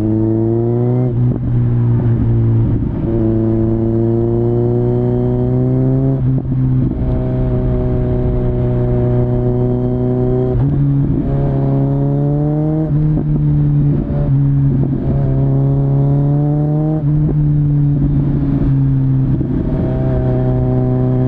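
Kawasaki Z900's inline-four through a LeoVince LV10 slip-on exhaust, heard onboard while riding: the engine note climbs under acceleration and drops back with each upshift, several times over, with a stretch of steady cruising in the middle.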